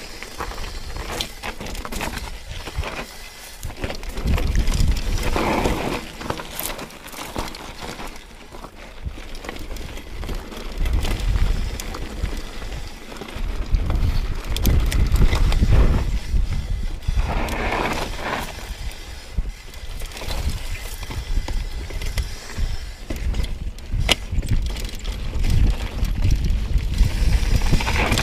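Mountain bike riding down a rough dirt and rock trail: wind buffeting the microphone, tyres rolling over dirt and stones, and sharp rattles and knocks from the bike over bumps. It swells louder several times as the bike picks up speed.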